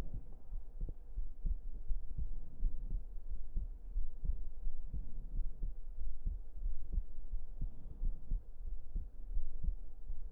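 Close-miked human heartbeat: a run of low, soft, steady beats over a low rumble.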